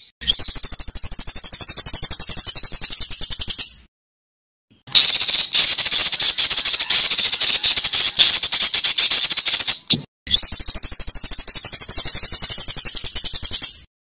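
Songbird giving a harsh, very rapid rattling trill of the 'tembakan kasar' kind, in three bursts of a few seconds each with short silences between. The middle burst is the longest and loudest.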